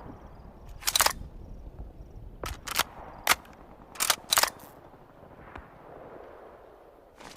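M2 carbine, a select-fire .30 Carbine rifle, firing about seven separate single shots at uneven spacing, each a sharp crack with a short ringing tail; the last few are fainter.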